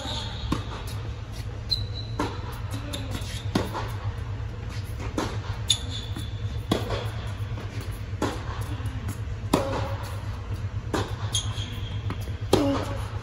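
Tennis rally on an indoor hard court: sharp racket-on-ball hits and ball bounces every one to two seconds, with short high sneaker squeaks on the court, over a steady low hum.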